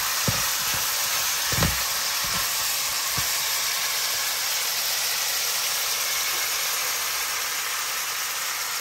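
Shrimp cooking down in a hot pot of stew sauce, sizzling steadily, with a few soft knocks in the first few seconds.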